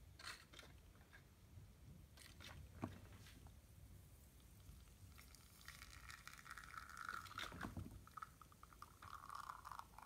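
Espresso starting to run from a bottomless portafilter on a Microcimbali lever espresso machine, a faint trickle and hiss into the cup from about five seconds in, after a few faint clicks.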